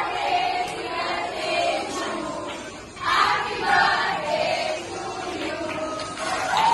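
A group of party guests cheering and shouting over one another, in swells, with a louder burst about three seconds in.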